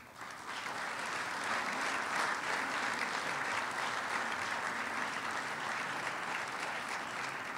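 Audience applauding, starting abruptly and holding steady for several seconds, easing off slightly near the end.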